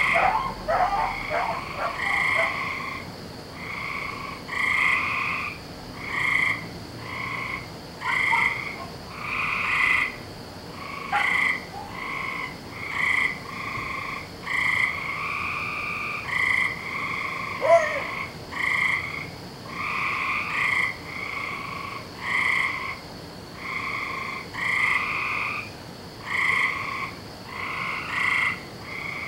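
A chorus of frogs croaking, short calls repeating about once a second and overlapping one another. A quick rattling run of calls opens it, and one sharp short call about two-thirds of the way through is the loudest moment.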